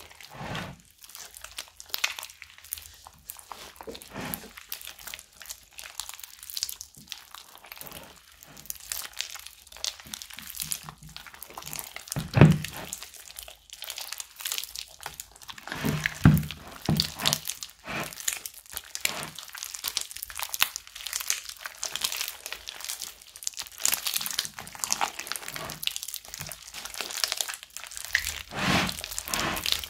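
Wet slime mixed with small foam beads being squeezed and kneaded by hand in a bowl of water: irregular squelches and crackles, with a few louder squishes about 12, 16 and 29 seconds in.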